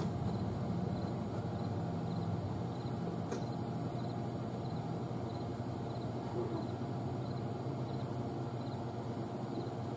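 Steady low electrical hum from a variac-fed step-up transformer supply loaded by a toaster oven's heating elements, as the voltage is cranked up and the draw climbs from about one to over three kilowatts.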